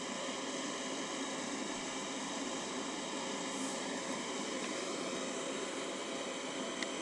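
Steady whirring of a cooling fan, an even hiss with faint steady tones through it, and a single faint click near the end.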